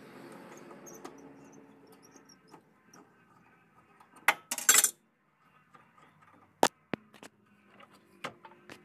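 A screwdriver working a radiator hose clamp, with metal clinks and scrapes. Two short, louder scrapes come about four seconds in, followed by a few sharp clicks spread through the rest.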